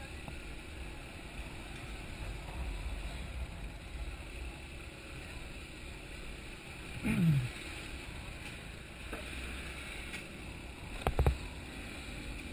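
Motorcycle riding along a street: a steady low engine and road rumble with wind noise on the microphone. A brief louder sound falling in pitch comes about seven seconds in, and a short cluster of sharp knocks about eleven seconds in.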